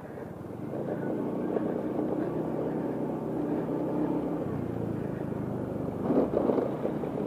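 A vehicle's engine running steadily while travelling along a road, with road and wind noise; its pitch drops about four and a half seconds in.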